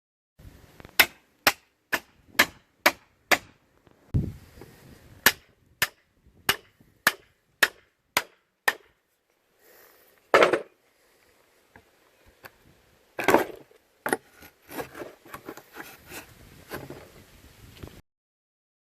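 Hammer striking a steel bolster chisel wedged between wooden pallet boards to loosen them: sharp blows about two a second, six in a row, a short pause, then seven more. Later come two louder, duller knocks and some clattering.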